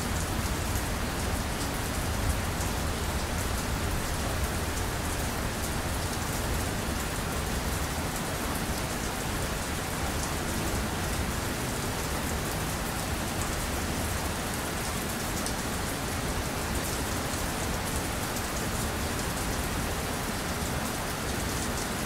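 Steady rain: a dense, even hiss of falling drops with a low rumble underneath.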